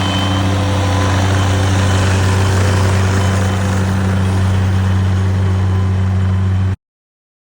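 A steady motor or engine hum with a strong low drone, cutting off abruptly near the end.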